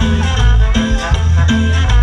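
Live Latin dance band playing on stage over a heavy, pulsing bass beat, with horns and guitar in the mix.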